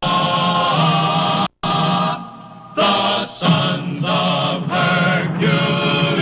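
Film-score music with a choir holding long chords, breaking off for an instant about a second and a half in, then moving through a phrase of changing notes.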